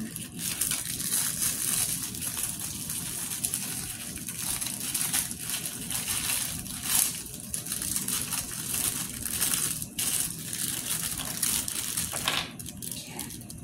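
Plastic packaging crinkling and rustling as it is handled, in irregular scrunches that stop shortly before the end.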